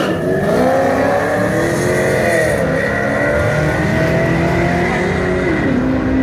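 Drag-race cars launching and accelerating hard down the strip. The engine pitch climbs steadily, drops at each upshift about two and a half seconds in and again near the end, then holds.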